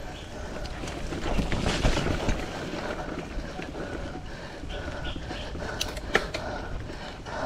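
Mountain bike ridden over a rough dirt trail: steady rolling and rattling noise from the tyres and bike, heaviest between about one and two and a half seconds in, with a couple of sharp knocks from the bike about six seconds in.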